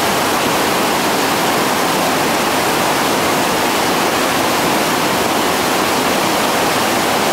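Whitewater rapids, a loud, steady rushing roar of churning water.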